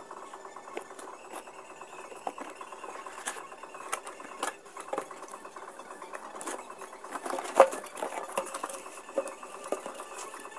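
Cardboard packaging handled by hand: irregular rustling, scraping and light knocks as an insulated bottle is worked out of its cardboard insert, with a sharp louder click about three quarters of the way through.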